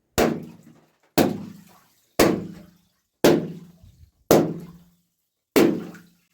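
Water-filled balloons bursting one after another: six sudden bangs about a second apart, each with a short low ringing tail that dies away.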